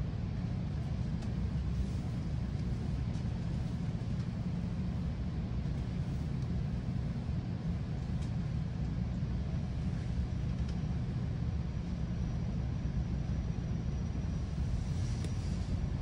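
Steady low rumble of a GO Transit bilevel commuter coach running between stations, heard from inside the car, with a few faint clicks.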